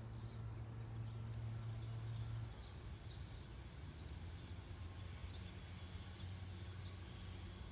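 Outdoor ambience: a steady low hum that drops in level about two and a half seconds in, with faint short high chirps scattered through.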